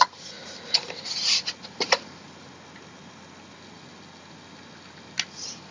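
A few light clicks and short scraping rustles from chair parts being handled during assembly, mostly in the first two seconds, with one more click near the end.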